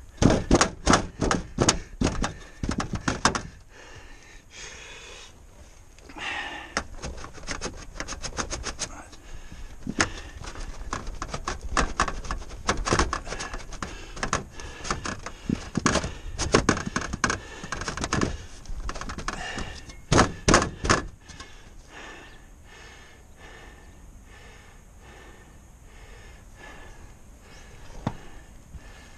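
Sheet-metal knocking and clatter as a turbine vent's collar base plate is forced again and again under a ribbed metal roof panel, snagging on a washer underneath. The knocks come in quick runs with short pauses and turn to quieter handling noise for the last several seconds.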